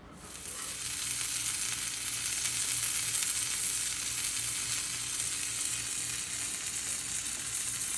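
Food sizzling and frying in a hot pan: a steady crackling hiss that swells in over the first half second and then holds level.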